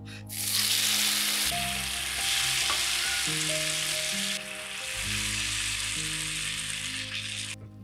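Diced tomatoes sizzling in hot oil in a non-stick frying pan, starting suddenly as they land in the pan, then stirred with a silicone spatula. The sizzling cuts off abruptly near the end.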